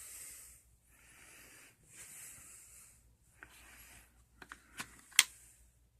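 Socket set and its plastic case being handled: a few soft rustling hisses, then several small clicks and one sharp, loud click about five seconds in.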